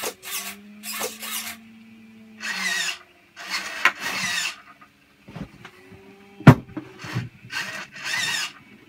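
Hobby servo motors whining in several short bursts as they drive a 3D-printed R2-D2 door open and swing out an arm, with one sharp knock about six and a half seconds in. The servo still needs a touch more adjustment to give full travel.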